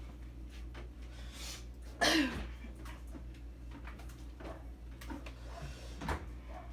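A person's single short vocal burst about two seconds in, its pitch falling fast, over a steady low hum, with a few faint clicks and taps.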